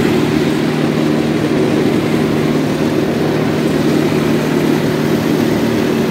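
Engine of a homemade jet boat running steadily under way, a constant drone that holds one pitch.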